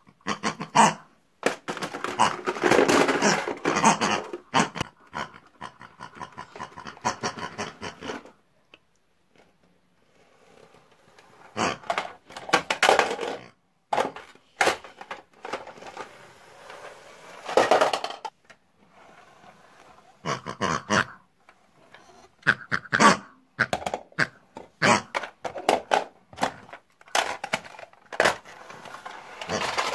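Irregular bursts of animal-like grunting and squealing for the toy pigs as they are handled, mixed with short knocks and clatter of plastic toy kitchen pieces.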